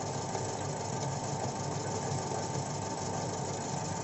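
Cassava chip slicing machine running steadily, its motor and rotating cutter giving an even hum with a constant high tone.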